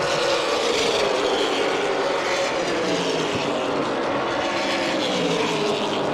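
Several Super Late Model stock cars' V8 engines at racing speed, overlapping in a steady drone whose pitch sinks slowly as the pack goes through the turn.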